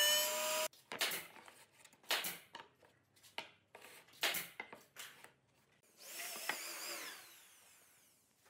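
A router table's motor whines for a moment, its pitch rising slightly, and cuts off abruptly. Then come a series of sharp wooden knocks as pine boards are set down and shifted on a wooden workbench. Near the end there is a softer hiss with faint wavering squeaks.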